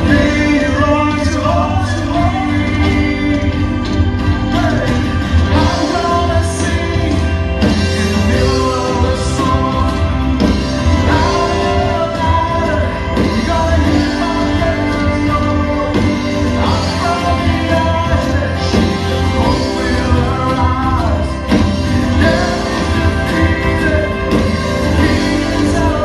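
A live church band playing a song with a singer: acoustic and electric guitars, bass guitar, keyboards and drums, running at a steady level.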